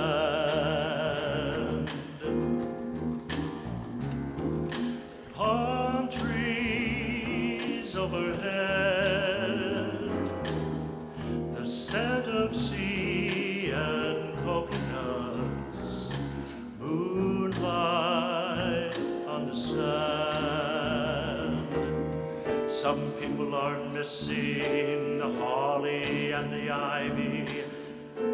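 Male soloist singing in phrases with wide vibrato over instrumental accompaniment, with short breaks between phrases.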